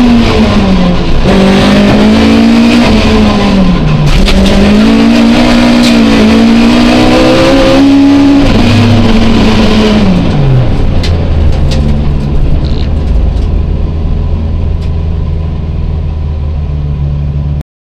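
Toyota Starlet rally car's engine heard from inside the cockpit, driven hard with the pitch climbing and dropping back repeatedly. About nine seconds in, the revs fall away and the engine runs low and steady as the car slows after the stage. The sound cuts off abruptly near the end.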